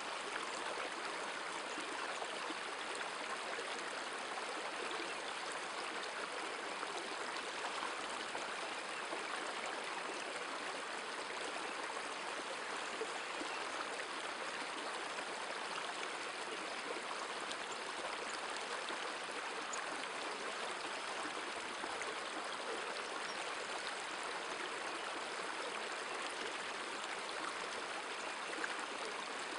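Shallow mountain river running over stones and gravel: a steady, even rush of flowing water.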